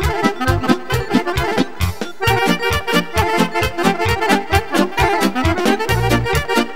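Instrumental break of Romanian party music played live: a Roland digital accordion and an alto saxophone lead the tune over a steady drum beat.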